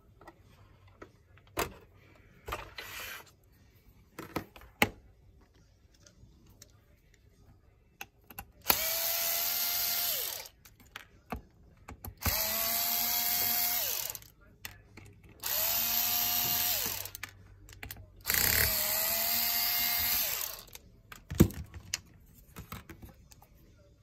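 Cordless electric screwdriver backing out the screws that hold a hard drive in an Xbox One S drive caddy: four runs of just under two seconds each, the motor whine coming up to a steady pitch each time. Scattered knocks and clicks of handling the plastic caddy and parts come before and after.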